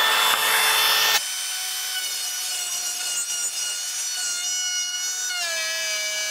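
Milwaukee cordless compact router running with a steady high whine. For about the first second its bit cuts a slot into the back of a piece of crown moulding, with a loud rushing rasp. About five seconds in the pitch sags slightly as the motor takes a load again.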